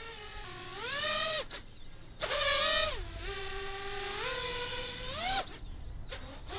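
Small FPV quadcopter's electric motors and propellers whining, the pitch rising and falling with the throttle. The whine cuts out about a second and a half in, comes back, and stops suddenly near the end.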